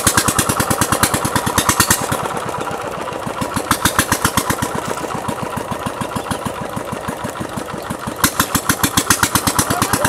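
A small engine running steadily with a fast, even beat, louder in stretches near the start, about four seconds in and near the end.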